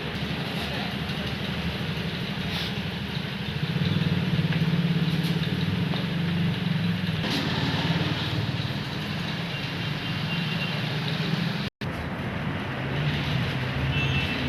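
Motorcycle engine running steadily, picking up a little about four seconds in and settling back after a few seconds. The sound cuts out for an instant near the end.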